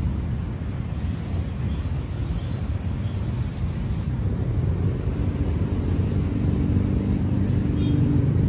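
Low rumble of engine traffic that grows louder in the second half, with a steady engine hum coming up over it. A few faint, short, high chirps sound between one and three seconds in.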